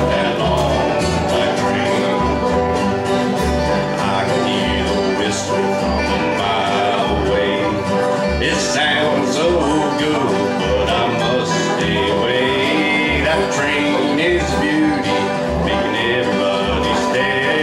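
Bluegrass band playing an instrumental break on five-string banjo, acoustic guitar and upright bass, with a steady plucked bass line under fast picked notes.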